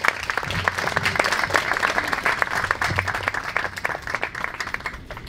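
Audience applauding: many people clapping, thinning out near the end.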